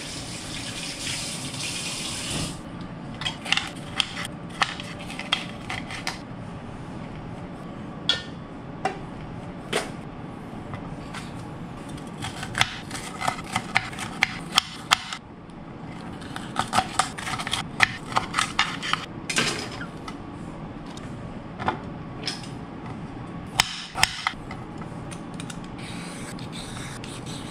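A kitchen tap runs water into the sink for about two seconds. Then a chef's knife chops bell pepper on a cutting board, with many sharp, uneven taps of the blade on the board. Near the end it gives way to a vegetable peeler scraping a carrot.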